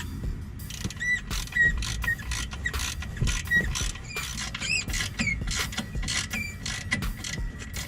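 A hand ratchet with a 3/8 hex bit socket backing out a front brake caliper bolt, clicking in uneven strokes, with short squeaks.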